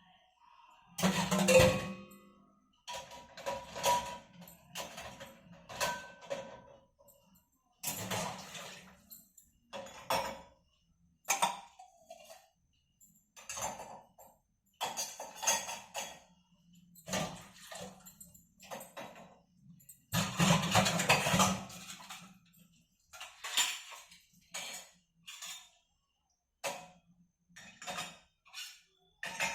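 Irregular clatter and knocks of hard objects being handled, about a dozen separate bursts with short quiet gaps between them.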